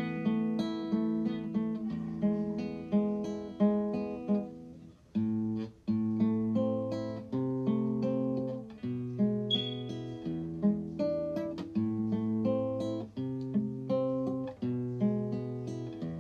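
Background music: a plucked acoustic guitar tune, each note ringing and fading, with a brief pause about five seconds in.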